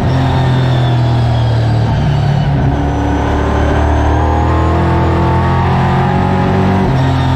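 Late Model race car's V8 engine running hard under race load, heard from inside the stripped cockpit. Its pitch rises and falls as the throttle is worked, with a sharp step up near the end.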